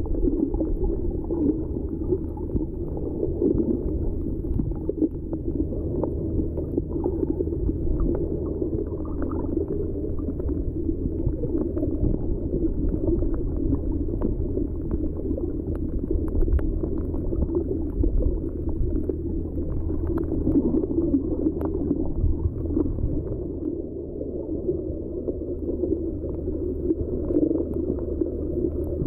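Muffled underwater ambience heard through a waterproof camera's sealed body: a steady low rushing and gurgling of water, with a low steady hum and faint scattered clicks.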